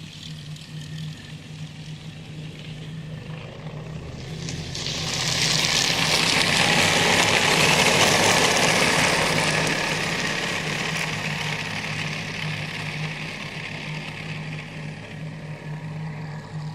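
Unexplained rushing noise from the sky that swells over a few seconds to a loud peak and slowly fades, over a steady low hum.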